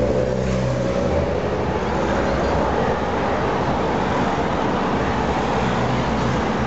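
Cars passing one after another along a street, a steady wash of engine and tyre noise, with one engine note fading away just after the start.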